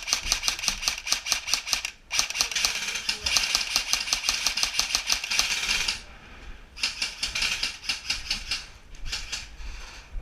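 Airsoft rifle firing on full auto in long bursts of rapid, even clicks: a burst of about two seconds, a short break, a longer burst of about four seconds, then a softer burst near the end.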